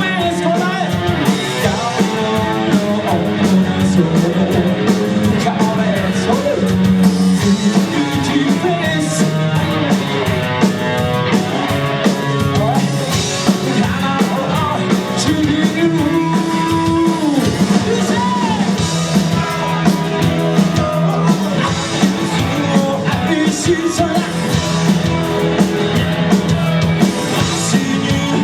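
Live rock band playing loudly: electric guitar, bass and drum kit, with singing.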